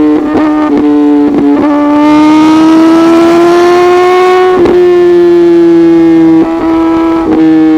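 Suzuki GSX-R1000R inline-four through an M4 full exhaust system, running loud at high revs, its note climbing slowly and then holding. The note is broken by short sharp cracks, a few in the first two seconds and two more near the end.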